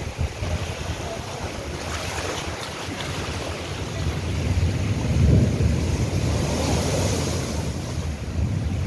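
Cyclone-driven surf breaking and seawater rushing over a flooded shore, with wind buffeting the microphone. The rush swells loudest about five seconds in.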